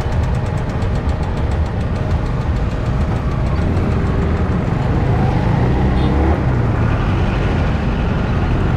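Vehicle engine running with steady road and wind rumble while riding through city traffic.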